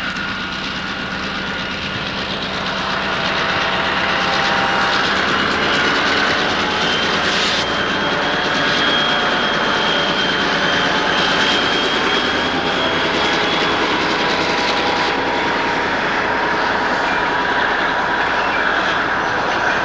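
Escanaba & Lake Superior Railroad freight train passing: the diesel locomotives pushing the snowplow work by, then the freight cars roll past with a clattering rumble. The sound grows louder about three seconds in, with a thin steady whine above the rumble.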